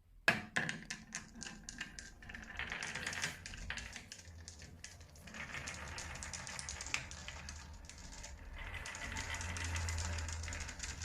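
Marbles running down a marble run: a quick series of sharp clicks as they drop onto the track and knock into each other, then a steady rolling rattle with occasional clicks as they travel along the runs.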